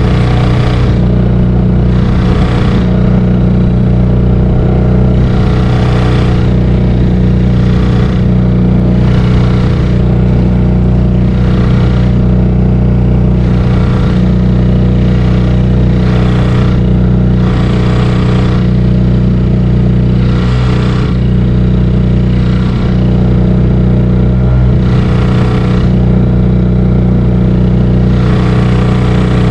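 Yamaha 3 hp outboard motor running steadily at cruising throttle, pushing a small inflatable kayak, its pitch holding level. A rush of noise comes and goes about every second and a half over the engine.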